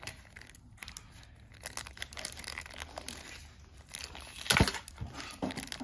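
Packaging crinkling and tearing as a puzzle cube is unwrapped by hand, a run of short crackles with one louder rip about four and a half seconds in.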